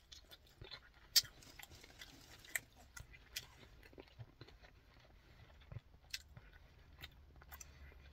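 A person chewing a mouthful of fried chicken with hot sauce close to the microphone: faint, irregular wet mouth clicks, the sharpest about a second in.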